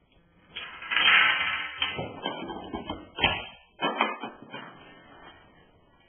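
Dominoes and books toppling one after another onto a wooden floor: a run of clattering knocks and thuds, with two louder thuds about three and four seconds in, then dying away.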